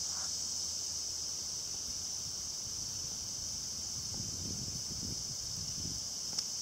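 Steady high-pitched drone of insects, with faint low rumbles about four to six seconds in.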